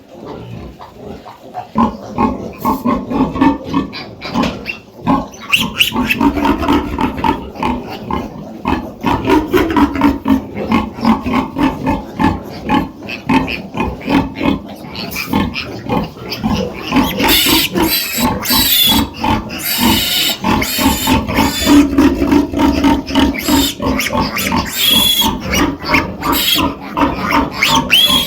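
Pigs in a sty grunting continuously. From about two-thirds of the way in, high-pitched squeals join the grunting.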